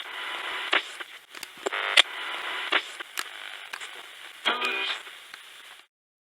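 Radio static sound effect: a hiss of band-limited radio noise broken by crackles and clicks, as from a radio channel or transmission. It cuts off suddenly about half a second before the end.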